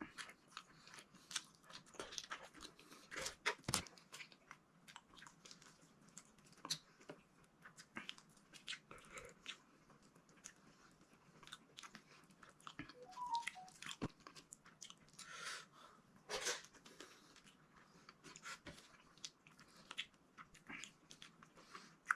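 A person chewing and biting okra and eggplant close to the microphone, with irregular soft crunches and wet mouth clicks.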